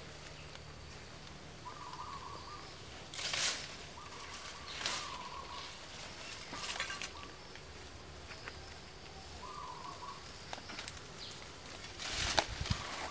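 Leafy brush and branches rustling in short bursts as someone pushes through dense bushes, loudest about three seconds in and again near the end. Short, even-pitched calls repeat every couple of seconds underneath.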